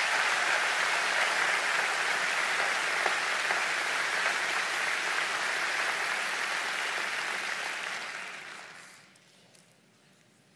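Large audience applauding steadily, the clapping dying away about eight to nine seconds in.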